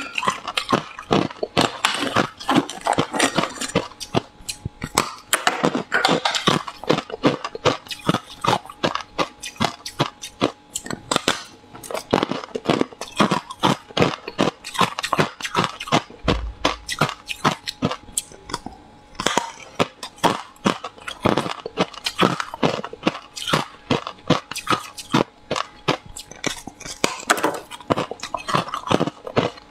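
Close-miked crunching of hard ice slabs being bitten and chewed: a dense run of sharp cracks and crunches, several a second, with no pause.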